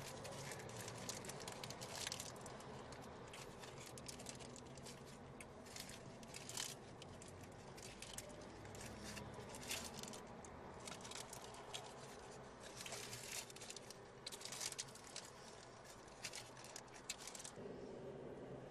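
Faint street ambience with a low steady rumble, overlaid by irregular crackling and rustling ticks that stop shortly before the end.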